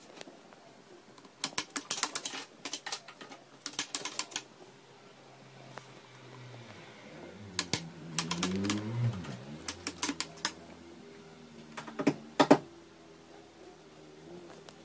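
Several clusters of quick, sharp clicking taps, the loudest a little after the middle. A soft low wavering sound comes between them about halfway through.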